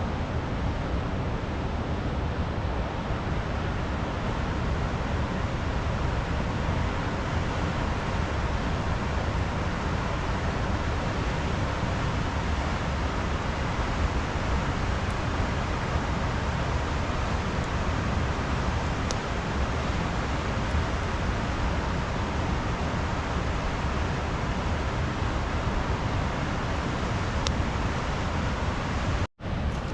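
Steady rushing noise of a river in heavy flood, broken by a sudden momentary dropout about a second before the end.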